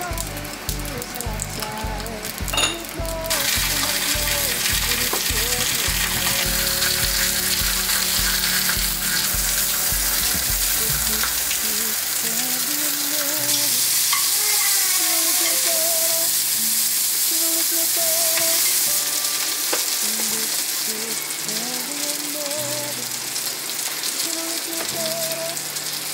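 Pork neck slices and eggplant sizzling as they fry in a hot cast-iron skillet, the loud sizzle starting about three seconds in.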